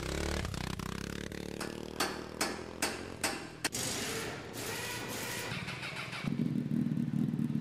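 Motorcycle engine running, with five sharp knocks about every half second around two to three and a half seconds in. About six seconds in it changes to a louder, rougher engine note.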